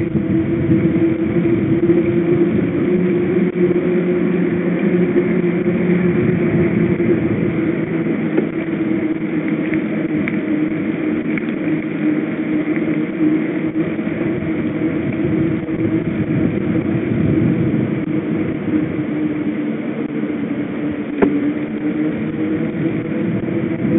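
Mountain bike rolling along an asphalt road, heard from a bike-mounted camera: a steady tyre hum with wind noise. One sharp click about 21 seconds in.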